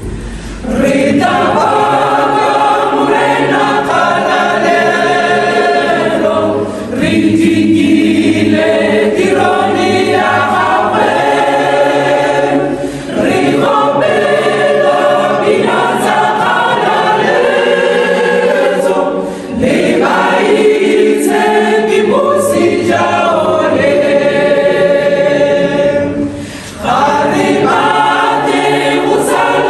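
Mixed choir of men and women singing a cappella, in phrases about six seconds long with short breaks between them.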